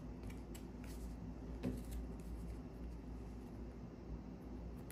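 Faint soft flicks and slides of Panini Select basketball trading cards being moved through a stack by hand, a few light clicks in the first two seconds, over a low steady hum.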